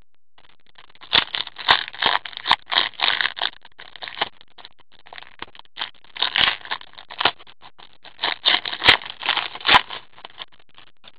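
Hockey card pack being torn open: the wrapper crinkles and crackles in quick irregular bursts, with a few sharp clicks, as the cards are pulled out.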